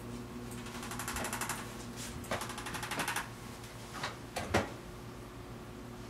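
Arthrostim electric adjusting instrument tapping rapidly, in two bursts of about a second each, followed by a few separate sharp clicks.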